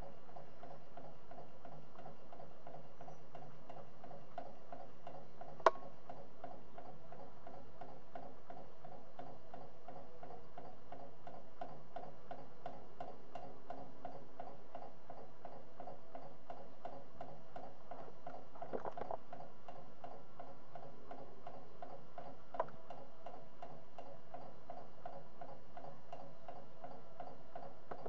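Homemade model Stirling engine, built from scrap, running steadily at about 120 revs per minute, its crank, flywheel and linkage making an even rhythm of light mechanical clicks. A single sharper, louder click comes about six seconds in, and fainter ones near the end.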